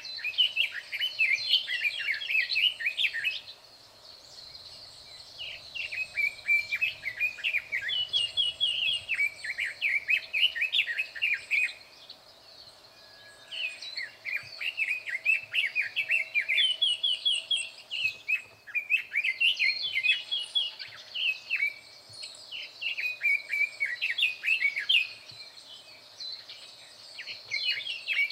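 Red-billed leiothrix singing a loud, fast warbling song in phrases of several seconds, with short pauses between them.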